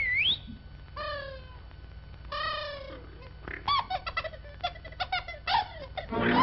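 Cartoon crow calls: two drawn-out caws that fall slightly in pitch, then a quick run of short chattering caws. It begins with a brief whistle that dips and rises again.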